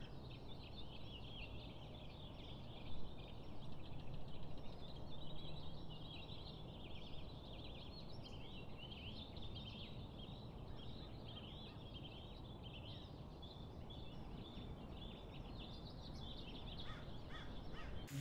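Faint chorus of many small birds chirping and twittering over a steady low background hiss, with one brief louder sound about three seconds in.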